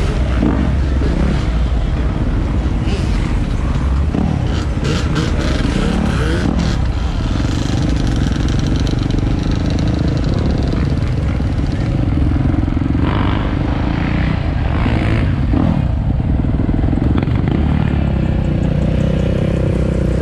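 Dirt bike and four-wheeler engines running, their revs rising and falling, over a steady low rumble.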